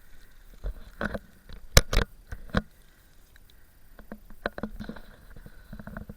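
Crunching steps in deep snow and knocks from the handheld camera being turned around. A few loud knocks come about two seconds in, then quicker, lighter crunches toward the end.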